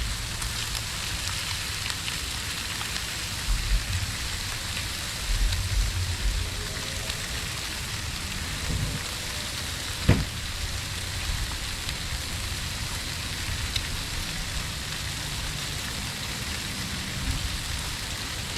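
Bacon sizzling steadily on a Blackstone flat-top griddle, a constant crackling hiss. A single sharp tap is heard about ten seconds in.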